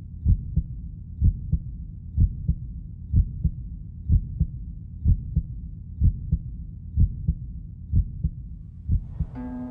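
A low heartbeat-style double thump, lub-dub, repeating about once a second as the intro of a band's song. Near the end a shimmering swell and plucked notes begin to come in.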